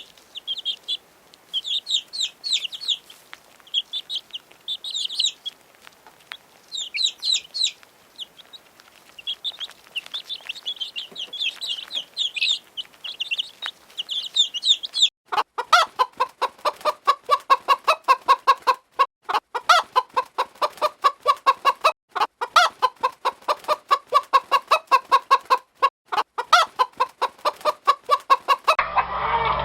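Poultry chicks peeping in short bursts of high chirps for about fifteen seconds. Then adult poultry take over with fast, repeated clucking calls, lower in pitch, broken by brief pauses.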